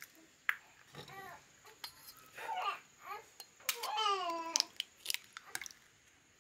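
An infant babbling and cooing in a few short high-pitched calls, the longest a falling coo about four seconds in, with a few light clicks in between.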